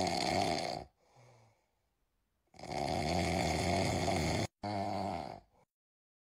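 Snoring: one long snore ending about a second in, then after a pause another long snore that breaks off briefly and ends a second later.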